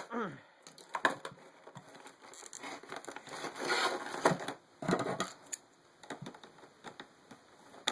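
Packaging being handled and pulled open: irregular crinkling and scraping with a few sharp cracks, louder for a second or so around the middle.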